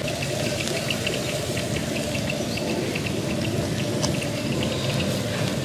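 Stuffed freshwater snails cooking on a wire grill: juices bubbling and sizzling inside the shells, with many small irregular pops and crackles over a steady hiss.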